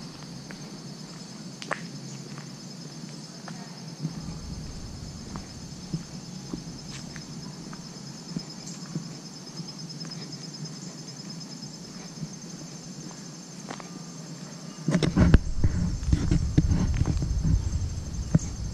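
Steady high-pitched chorus of insects, a fine rapid pulsing, with occasional faint clicks. About three-quarters of the way in, a loud low rumbling noise comes in and stays, drowning out the lower sounds.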